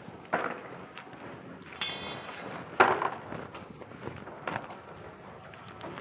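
A few sharp metallic clinks and knocks, the loudest about three seconds in, some ringing briefly, over a steady background of site noise.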